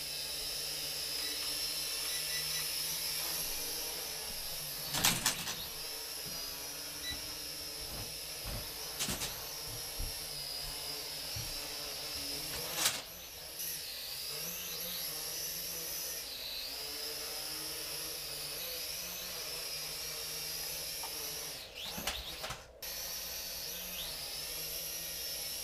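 Small toy quadcopter drone's propellers and motors whining steadily, the pitch dipping and rising as the throttle changes. There are a few sharp knocks, and the whine cuts out briefly near the end.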